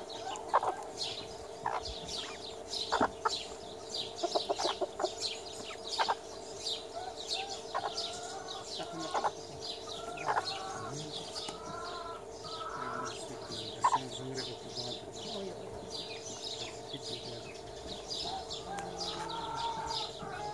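Bantam roosters clucking in short bursts, over a constant patter of quick high chirps and a steady low hum.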